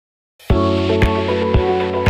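Intro music starting about half a second in: sustained chords over a steady beat of about two beats a second.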